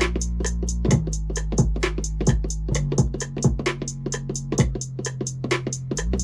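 Trap beat looping from a Maschine Mk3 drum machine: a fast, even run of hi-hats over kicks and long deep 808-style bass notes that shift in pitch.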